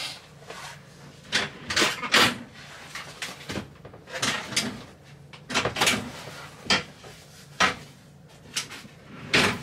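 Irregular knocks, clunks and rustles from someone moving about and handling the fittings inside a motorhome, about ten sudden sounds with the loudest around two seconds in and near the end.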